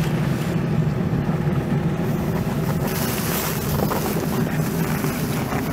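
A Toyota car's engine, heard from inside the cabin as the driver works the ignition in extreme cold: a steady, rough low sound, with a hiss growing about halfway through.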